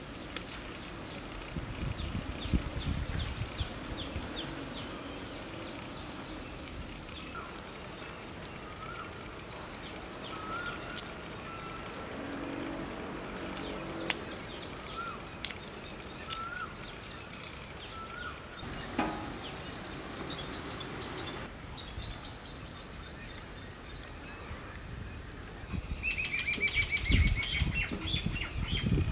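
Small birds chirping and calling. Quick high twitters come throughout. A lower short call repeats every second or two through the middle, and a louder falling run of notes comes near the end. A few sharp clicks come through the middle, and there is a low rumble near the start.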